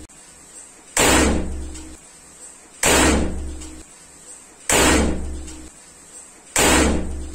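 Homemade calcium carbide bottle gun firing: the spark ignites acetylene in the plastic bottle and it goes off with a sudden bang through the PVC pipe barrel. Four bangs about two seconds apart, each ringing out and dying away over about a second.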